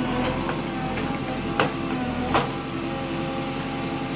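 Backhoe loader's diesel engine running steadily with a steady whine, with two sharp clanks about a second and a half in and again a moment later.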